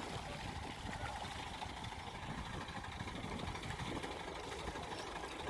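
Engine idling steadily, a low, even rumble.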